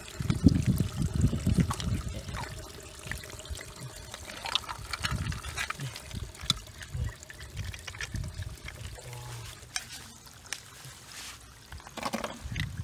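Water splashing and trickling, heaviest in the first two seconds, then quieter irregular sloshes with scattered small drips and clicks.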